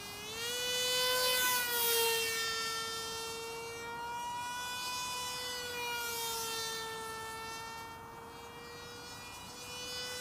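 Single electric motor and propeller of a Spirit 600 mini FPV flying wing, whining in flight. The pitch rises as the throttle comes up about half a second in, and the whine is loudest as the plane passes close about one to two seconds in. It then holds a steady high whine and fades somewhat near the end.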